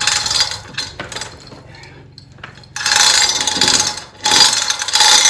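Hand-operated hoist being worked to lower a heavy wooden beam: ratcheting, mechanical clatter in long bursts starting about three seconds in, after a brief quiet spell.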